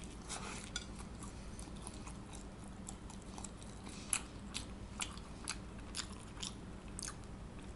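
A person biting into a slice of pizza and chewing it: irregular soft crunches and wet clicks from the mouth.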